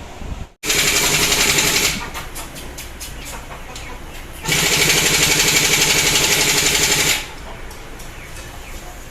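An impact wrench hammering in two bursts, a short one about a second in and a longer one of nearly three seconds midway.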